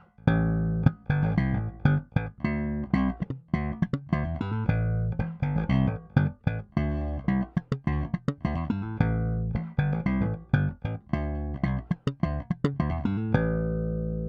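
Fender Japan Jaguar Bass played solo, recorded direct: a fast line of separately plucked notes with sharp attacks, ending on a long sustained note about a second before the end.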